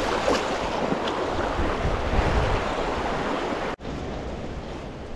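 Steelhead splashing and thrashing in shallow creek water as it is released, over the steady rush of the stream. About three and a half seconds in the sound breaks off abruptly and gives way to a quieter rush of flowing water with wind on the microphone.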